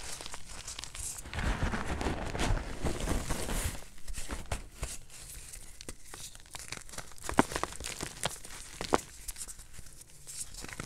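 Hands crushing powdery gym chalk: a dense, gritty crunch from about one to four seconds in. Then sharp cracks and crackles as a chalk block is pressed and breaks apart, with the loudest snaps in the second half.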